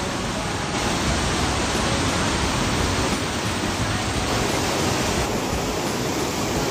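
Loud, steady rush of white water in a rocky mountain stream, heard close by. Its tone shifts abruptly two or three times.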